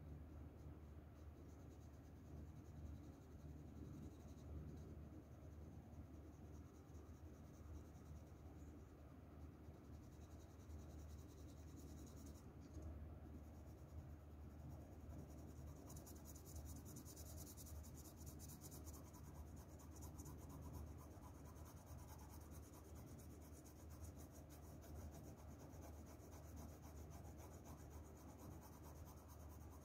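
Faint scratching of a graphite shading pencil on paper, with quick, continuous strokes that grow more prominent about halfway through, over a low steady hum.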